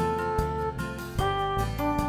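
Instrumental background music: a melody of held notes that change about every half second over a steady low accompaniment.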